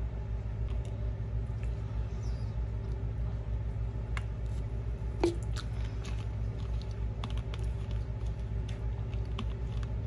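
Steady low hum with scattered faint clicks and taps, and one louder tick about five seconds in.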